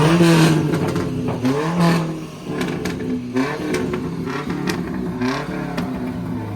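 A car engine revving again and again, its pitch climbing and dropping back with each blip, with a few short sharp cracks between the revs.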